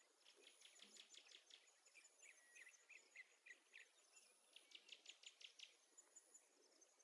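Faint birdsong: several quick runs of short, high chirps, with a faint steady high insect trill underneath.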